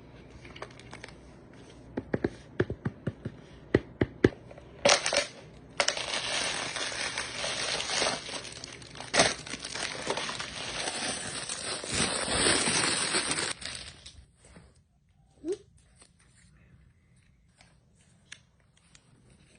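Toy packaging being handled and opened: a string of sharp clicks and taps, then several seconds of loud continuous crinkling and tearing that stops about fourteen seconds in.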